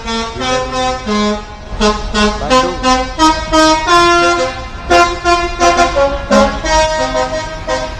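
Bus telolet musical air horns playing a quick tune of short pitched notes, several tones sounding together, louder from about two seconds in.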